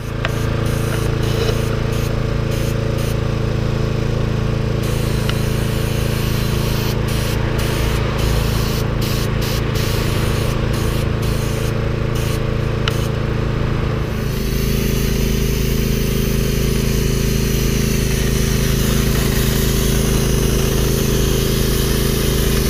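Gravity-feed air spray gun hissing as it sprays paint, over the steady drone of a motor running.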